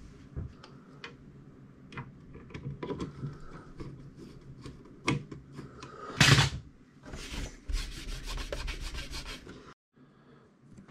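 Clicks, knocks and rubbing of metal computer parts being handled as a CPU heatsink-and-fan cooler is fitted back into an open desktop PC case. There is a loud clunk about six seconds in, then a fast run of ticks, about seven a second, for two seconds, which cuts off suddenly.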